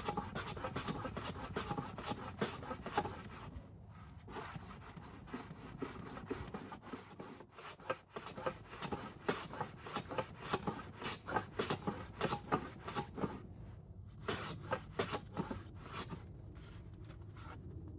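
Hand plane pushed along a shooting board in a quick series of short scraping strokes, trimming a wooden board's edge straight, with a few brief pauses between runs of strokes.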